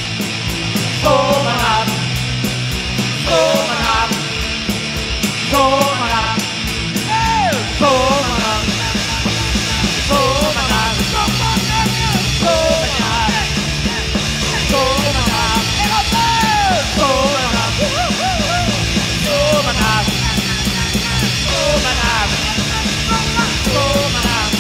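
Rock band playing an instrumental passage: a lead melody with bending, sliding notes over a steady driving beat, bass and rhythm parts.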